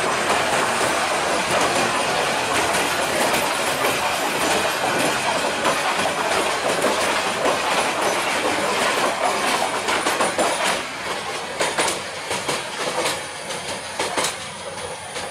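Sagarika Express passenger coaches rolling past with a steady loud rattle and rumble. The noise fades over the last few seconds as the train draws away, broken by a few sharp clicks.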